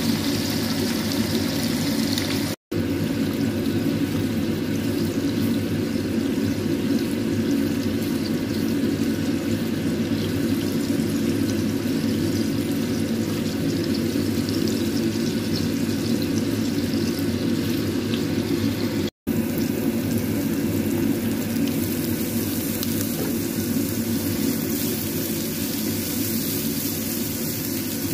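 Hot oil sizzling steadily in a frying pan as cubes of tofu fry. After a brief dropout about 19 seconds in, the sizzle goes on as chopped garlic and shallots fry.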